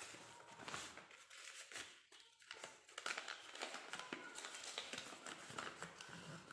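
Packaging being handled and opened: irregular crinkling and rustling with small clicks.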